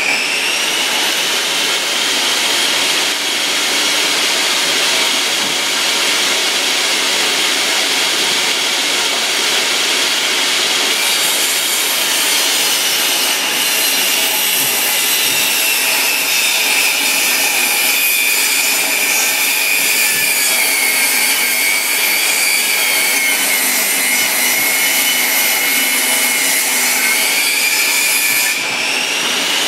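Makita portable table saw ripping a long reclaimed floorboard: a continuous motor and blade whine over wood-cutting noise. The whine drops in pitch as the blade takes more load and rises again near the end as the cut frees.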